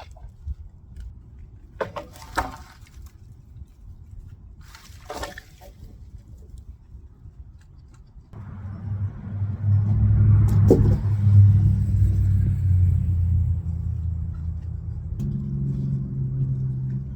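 A couple of brief knocks, then about halfway through an engine comes in and runs steadily at a low pitch, shifting to a different note near the end.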